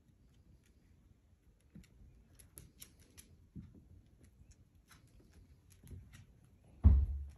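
Faint scattered clicks and light taps of a small puppy's paws and claws on a hardwood floor, with one loud low thump near the end.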